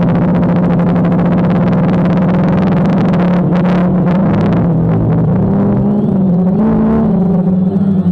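DJI Phantom quadcopter's motors and propellers running in flight: a steady hum over a rush of propeller wash. The pitch wavers and rises briefly about six to seven seconds in, as the motor speeds change.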